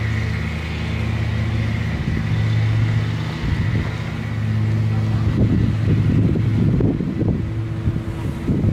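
Steady low mechanical hum, like an engine or motor running nearby. From about halfway through, irregular rumbling noise is added on top.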